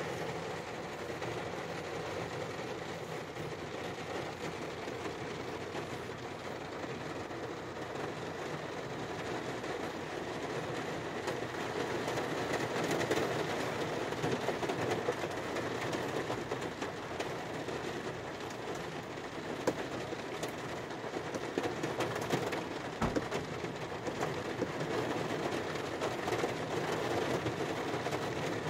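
Rain falling on a car's roof and windshield, heard from inside the cabin: a steady, dense patter that grows heavier about halfway through, with one sharp tap about three-quarters of the way in.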